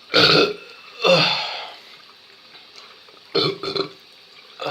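A man burping loudly several times after gulping down glasses of water: two big burps in the first two seconds, the second longer and trailing off, then two short ones near the end.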